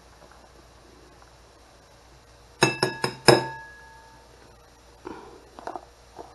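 A metal spoon tapped four times in quick succession against a white ceramic bowl, knocking food off the spoon, each tap clinking and ringing briefly, the last one loudest. Softer scrapes of the spoon follow near the end.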